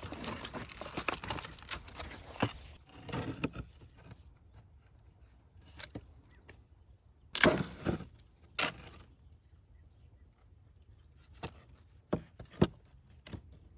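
Handling noise from working a wooden top bar hive: rustling and scraping for the first few seconds, then a loud cluster of knocks and scrapes about halfway through, and a few sharp clicks near the end.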